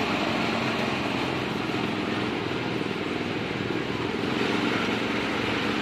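Steady road-traffic noise with motorcycle engines running, with no sudden sounds.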